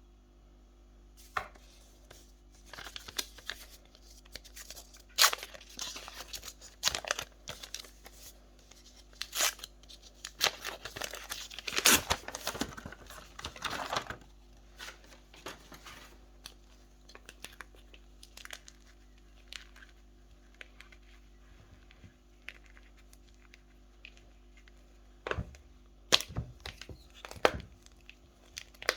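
Sports chalk being broken and crumbled by hand: irregular sharp cracks and gritty crumbling, busiest in the first half, with a few louder snaps near the end.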